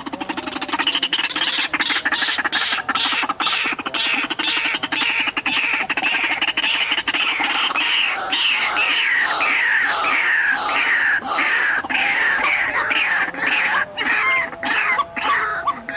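White-breasted waterhen calling: a fast run of harsh, pulsed notes that settles about halfway through into a repeated croaking call about twice a second.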